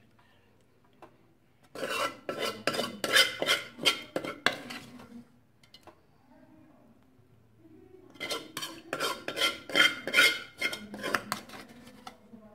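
A metal spoon scraping and clinking against the inside of a metal pot as the remaining chicken korma is scooped out. It comes in two spells of quick scrapes and taps, about two seconds in and again about eight seconds in.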